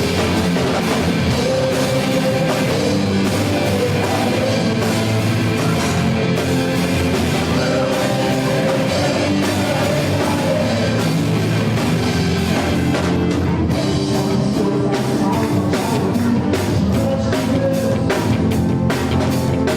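Live gospel rock band playing with a drum kit and singing with held notes; about thirteen seconds in, the drums pick up into rapid, dense hits.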